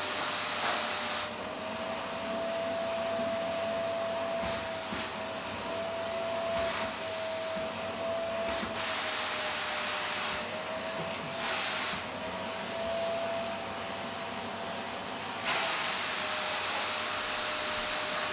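Vacuum cleaner running steadily: a motor whine over a rushing hiss. The hiss drops and returns several times as the airflow changes.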